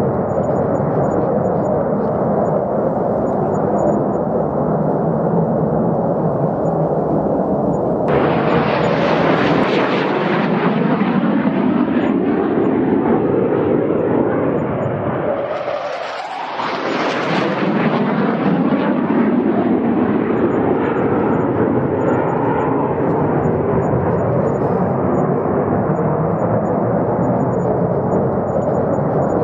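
Fighter jet engine noise: a steady jet rumble, joined about eight seconds in by a brighter hiss as a jet closes in. The sound sweeps in pitch and dips briefly about halfway through as the jet passes, then eases back to a steady rumble.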